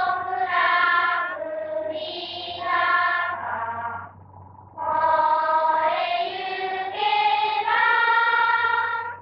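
A group of voices singing a slow melody together, in phrases about a second long with short breaks and a longer pause about four seconds in. A steady low hum from the early sound-film recording runs underneath.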